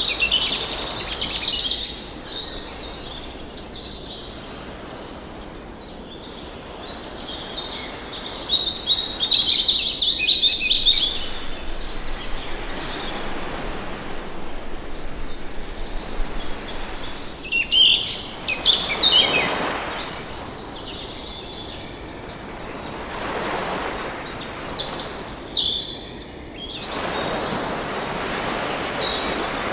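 Birds chirping and singing in repeated high, quick phrases over a steady wash of ocean surf, with the surf swelling twice in the second half as waves roll in.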